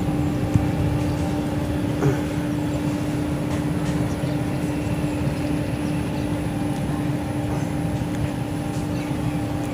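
A machine running steadily: a constant hum over a low rumble, with a small knock about two seconds in.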